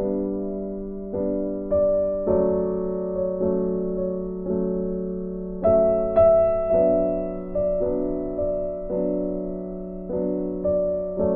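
Background piano music: slow, gentle notes and chords struck about once a second, each ringing and fading before the next.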